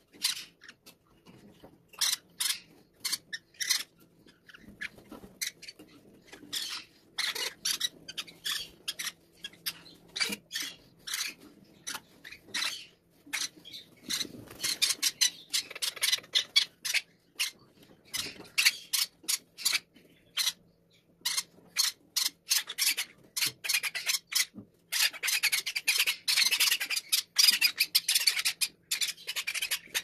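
Parrot chicks giving harsh, raspy food-begging calls while being hand-fed from a syringe: short scratchy chirps in quick succession, coming thicker and merging into a near-continuous rasp over the last few seconds.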